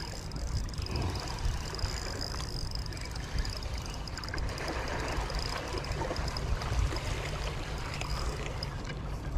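Water lapping and gurgling, with wind rumbling on the microphone. A faint steady high whine sits over it and fades near the end.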